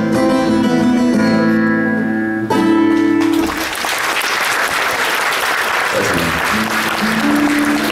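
Acoustic guitar playing the closing bars of a song, ending on a strong strummed chord about two and a half seconds in; audience applause then rises and continues, with a few more guitar notes sounding through it near the end.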